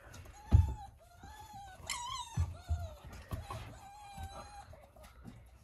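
Thin, high whimpering from a young canid: about five short whines in a row, some wavering in pitch, mixed with a few low thumps, the loudest about half a second in.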